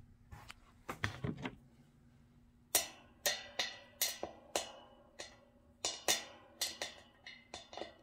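Metal-on-metal clinks and taps while a bicycle rear hub's bearings are worked out. A few soft clicks come first, then from just under three seconds in about a dozen sharp taps at uneven spacing, each ringing briefly.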